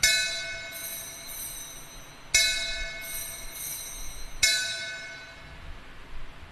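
Altar bells rung three times, about two seconds apart, each ring shimmering and dying away. They mark the elevation of the chalice at the consecration of the Mass.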